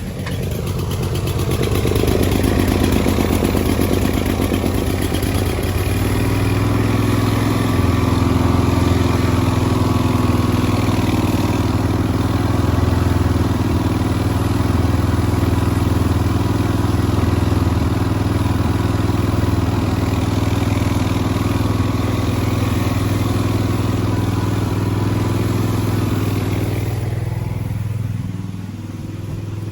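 Kawasaki V-twin engine of a 60-inch commercial zero-turn mower running. It grows louder about a second in, holds steady, and drops off near the end.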